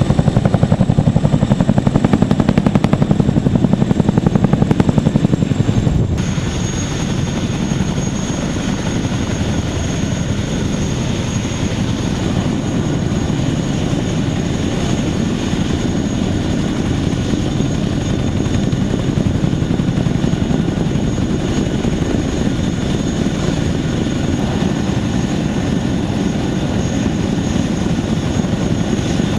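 CH-47 Chinook tandem-rotor helicopter running, with a fast rotor chop and a steady high turbine whine. The level drops a little about six seconds in, then the same sound carries on.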